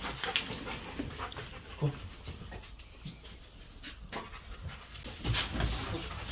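Police drug-detection dog panting in quick, irregular breaths as it searches, with scattered short knocks and rustling of things being moved around it.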